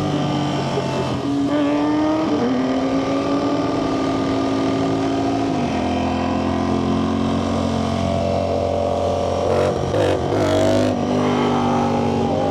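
Ducati Panigale V4 superbike's V4 engine running under way, heard from the rider's microphone. Its pitch holds fairly level, steps down twice, about two and six seconds in, then rises quickly and falls again near the ten-second mark.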